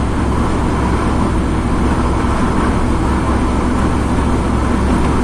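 Steady road noise of a car driving at highway speed, heard from inside the cabin: a constant low rumble of tyres and engine.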